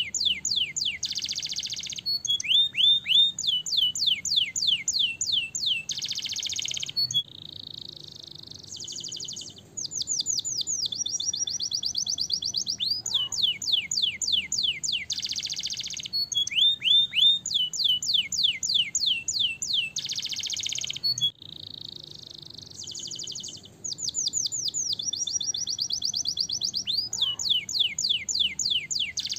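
Domestic canary singing a long, fast song: rapid trills of high, falling notes alternating with dense buzzy rolls, easing to softer passages twice.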